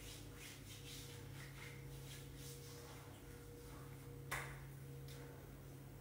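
Faint rustling of a towel rubbed over skin while drying off, with one sharp knock a little over four seconds in, over a steady low hum.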